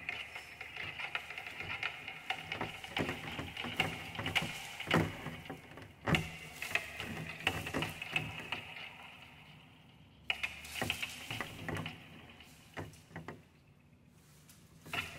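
Dense crackling, rustling and clicking from mechanical sound objects built from leaves and ribbons, over a low steady hum. It thins out about two-thirds of the way in, with a few brief flurries, and picks up again near the end.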